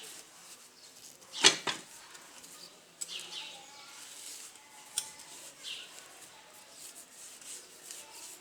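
Metal clinks and knocks of tools and parts being handled: a loud clatter about a second and a half in and a sharp click about five seconds in. Faint short chirps sound in between.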